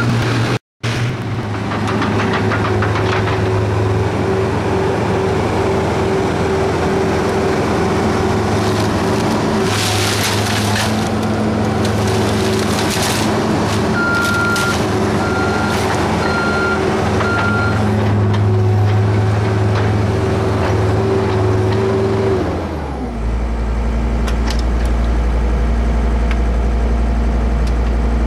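John Deere tracked skid steer's diesel engine running hard at high revs, with four short backup-alarm beeps about two-thirds of the way through. Near the end the engine drops back to a low idle.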